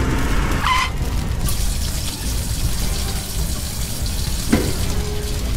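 Water spraying in a steady rushing stream from a thin hose. Two short higher-pitched sounds cut in briefly, about a second in and near the end.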